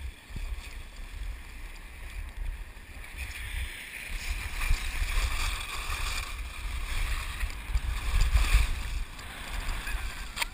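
Wind buffeting the GoPro HD Hero2's microphone while skiing downhill, with the skis hissing and scraping over the snow. Both grow louder from about four seconds in as speed picks up.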